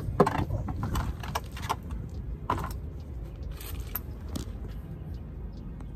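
Handling noise from a camera phone being moved and set down on asphalt: a cluster of clicks and knocks in the first couple of seconds and a couple more later, over a steady low rumble.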